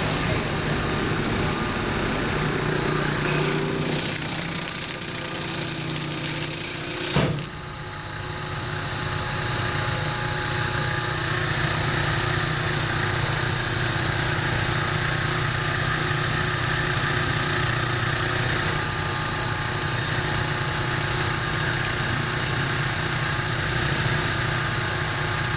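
FC-306 squash and pumpkin slicing machine running, its electric motors and conveyor giving a steady mechanical hum. There is a single sharp knock about seven seconds in.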